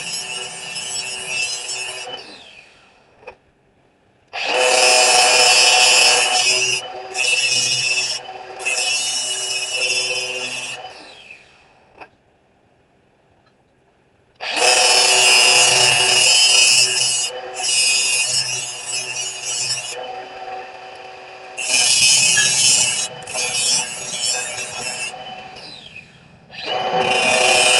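Power grinder grinding the edge on a hand-forged steel slot punch, in about five bursts of a few seconds each with short pauses between.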